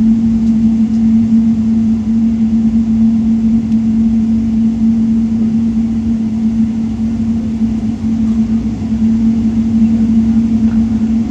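Steady cabin noise inside a Boeing 777-300 taxiing after landing: a constant droning hum over a low rumble.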